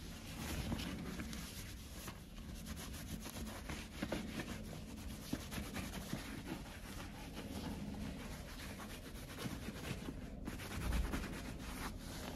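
A cotton cloth rubbing and wiping over the leather upper of a Dr. Martens boot as it is cleaned: continuous scratchy rubbing in many short strokes.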